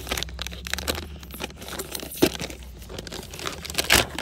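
Crinkling and tearing of an MRE drink-mix pouch being torn open and handled by hand, irregular crackles with two sharper ones about two seconds in and near the end.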